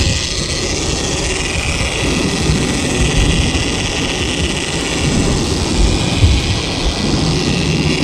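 Fishing boat running under way: a steady engine drone under a continuous rushing hiss.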